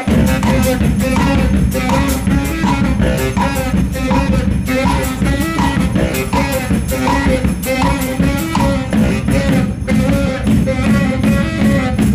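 Baritone saxophone and a marching drum playing together: a low, driving sax line over a steady drum beat.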